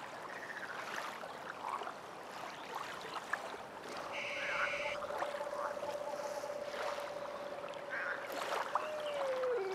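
Lake-water ambience: water lapping and trickling, with scattered small splashes and knocks. A long steady tone comes in about four seconds in and slides down in pitch near the end.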